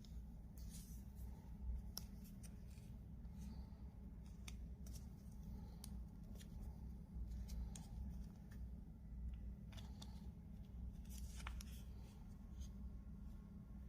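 Packaging handled by hand: scattered small clicks and rustles over a low steady hum.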